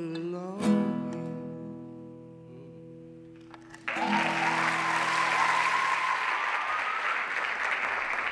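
Guitar strikes a final chord about half a second in that rings and slowly fades. About four seconds in, the audience breaks into applause, with a long whistle over it.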